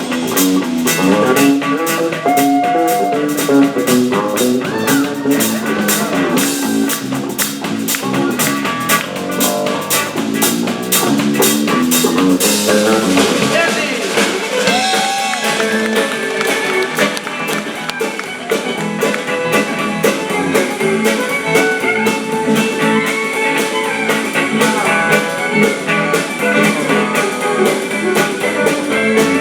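Live country-boogie band playing an instrumental break: electric guitar, bass and drum kit over a steady driving beat. About twelve seconds in, the drumming changes and held instrument lines come forward.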